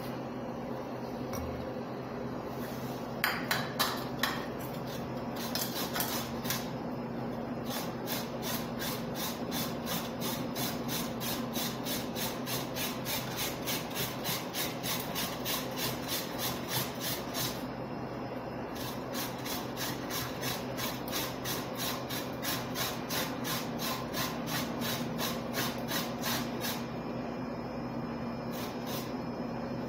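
Carrot being grated on a metal box grater: a steady run of rasping strokes, about three a second, with a short break just past the middle. A few sharper knocks come earlier, and a steady low hum runs underneath.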